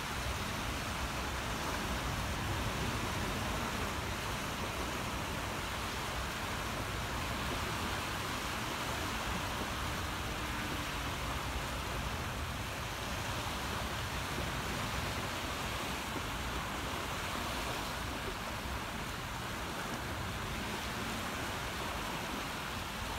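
Small waves breaking and washing onto a sandy shore: a steady rushing noise, with wind rumbling on the microphone underneath.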